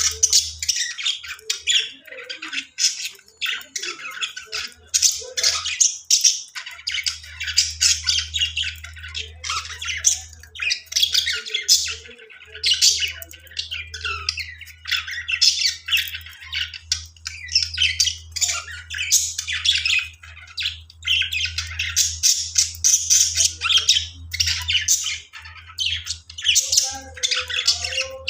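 Budgies chattering and squawking in a constant, rapid, high-pitched stream, with a low hum underneath.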